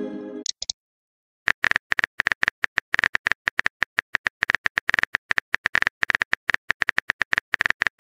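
Phone keyboard tapping sound effect: rapid, even key clicks, several a second, as a text message is typed, starting about a second and a half in. A short electronic tone fades out at the very start.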